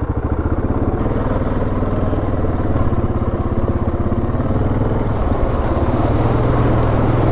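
2017 Yamaha Grizzly 700 ATV's single-cylinder engine running steadily while riding on a trail. The engine has a fast, even pulse and gets a little louder about halfway through.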